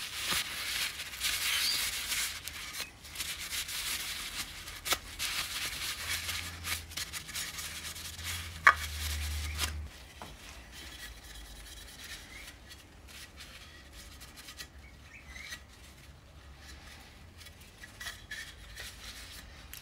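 Tissue paper rubbing over a torch-heated aluminium chainsaw crankcase half, with a hissing sizzle of residue cooking out of the hot metal and a few sharp clicks. It quietens about ten seconds in, leaving faint rustling.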